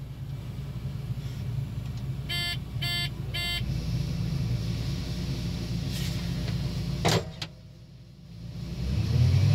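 Combine running, heard inside the cab as a steady low hum, with three short beeps from the cab about two and a half seconds in. Near seven seconds a sharp click is followed by a sudden drop in sound, then a hum rises in pitch and level near the end.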